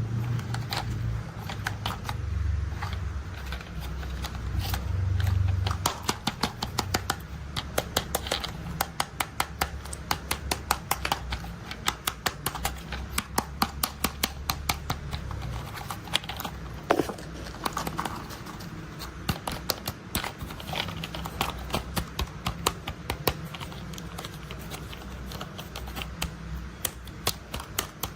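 Toy construction vehicles being handled: rapid, irregular clicks and rattles of small plastic parts, over a low hum for the first six seconds or so.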